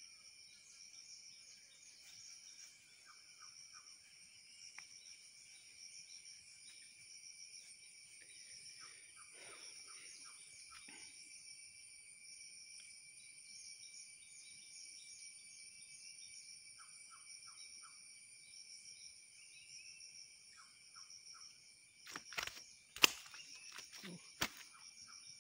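Steady outdoor insect chorus, a constant high drone in several pitches, with short high chirps now and then. Near the end come a few sharp knocks or clicks, the loudest about 23 seconds in.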